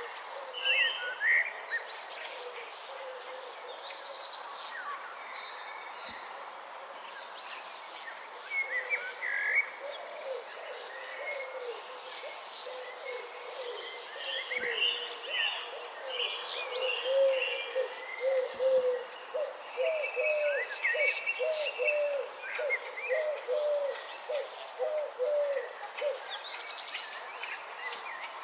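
Steady high-pitched chorus of insects with scattered short bird chirps over it. The insect sound drops out briefly about halfway, and in the second half a low call repeats about twice a second.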